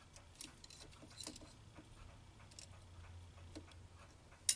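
Steel calipers handled against a brass workpiece in a lathe chuck: faint scattered clicks and light scrapes as the jaws are set in the bore, then a sharp double click near the end.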